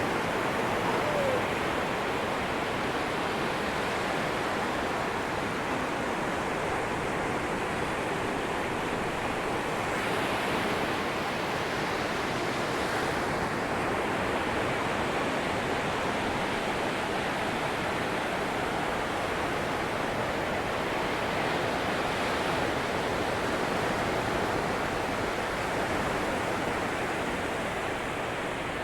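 Atlantic surf on a sandy beach: a steady wash of breaking waves, swelling and easing gently.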